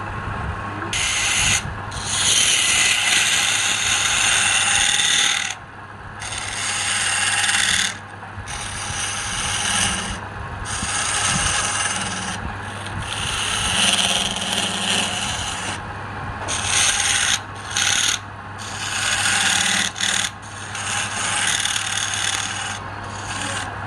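Wood being worked on a turning lathe: a tool or abrasive rubs against the spinning wood in repeated passes of one to three seconds, with short breaks between, over the steady hum of the lathe motor.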